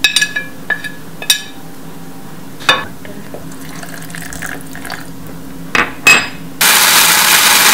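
A metal spoon clinks and taps several times against a china plate and the plastic grinder jar. About six and a half seconds in, an electric mixer-grinder starts with a sudden loud, steady rushing noise as it grinds the soaked chilies, Bengal gram and spices into masala chutney.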